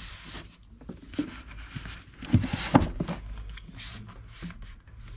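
Books being slid and pushed into place on a bookshelf: a large hardcover and a row of paperback manga rubbing against each other and the shelf, with a few light knocks, the loudest cluster about two and a half seconds in.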